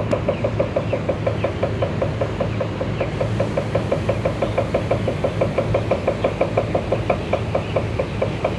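Machinery running with a steady low hum and a rapid, even knocking, about six knocks a second.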